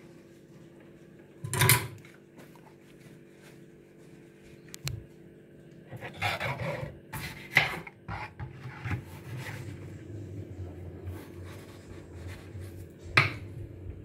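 Kitchen handling noises: a few sharp knocks and some clatter and rubbing of objects being picked up and set down on a worktop, over a steady low hum. The loudest knock comes about two seconds in, with a busier patch of clatter around the middle and one more knock near the end.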